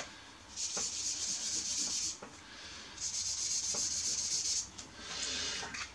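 Felt-tip highlighter rubbing across paper: two long strokes of about a second and a half each, then a shorter, fainter one near the end.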